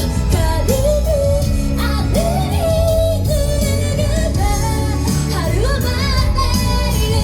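Japanese idol pop song performed live: female voices sing the melody over a loud pop backing with a steady beat.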